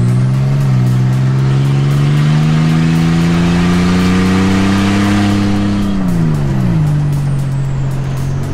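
Car engine under acceleration: revs climb steadily for about six seconds, drop quickly as in an upshift, then hold steady.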